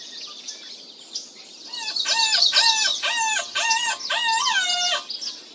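A run of about five short pitched calls, the last one drawn out and falling in pitch, over faint high bird chirping.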